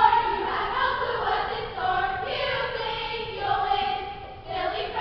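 A group of girls chanting and singing a cheer together in unison, in drawn-out notes.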